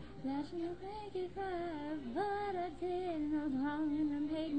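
A young woman singing, her voice holding notes that bend up and down in pitch, with short breaks between phrases.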